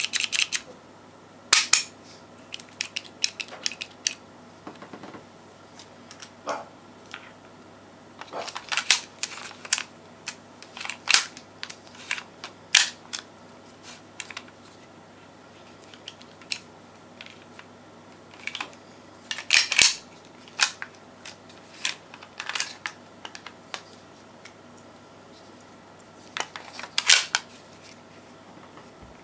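Sharp mechanical clicks and clacks, in irregular clusters, from a Walther P99 P.A.K. 9 mm blank-firing pistol being handled and worked by hand.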